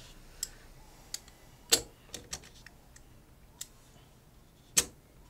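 Irregular sharp clicks and light metallic clinks of one-ounce silver bullion rounds being handled on a counter mat, about seven in all, two of them louder: one a little under two seconds in and one near the end.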